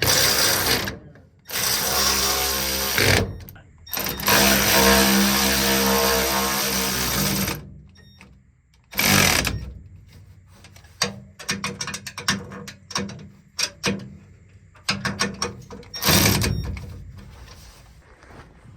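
Power tool running in several bursts of a few seconds each, fastening the new chopper knife on a combine, with scattered sharp metal clicks and clinks between the bursts.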